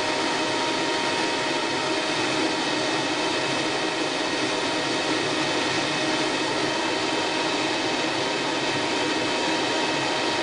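Vitamix blender running steadily at high speed, blending carrot tops, almonds and garlic in water into a smooth sauce. It is switched off at the very end and the motor starts to wind down.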